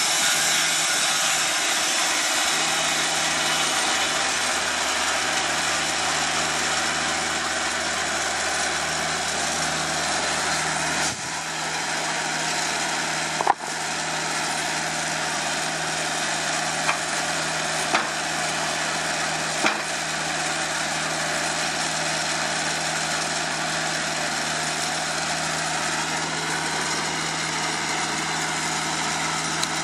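TimberKing 2000 band sawmill running steadily, its bandsaw blade sawing lengthwise through a cant of blue quandong (Elaeocarpus grandis) over the engine's drone. The level dips briefly about a third of the way in, followed by one sharp click, then a few faint clicks.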